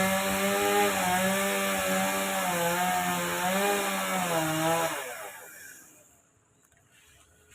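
Chainsaw cutting a coconut tree, its engine running at high speed with repeated small dips in pitch, then dying away about five seconds in.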